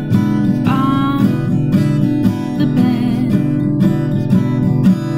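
Instrumental song accompaniment on a strummed acoustic guitar, chords struck at a steady pace of about two strums a second.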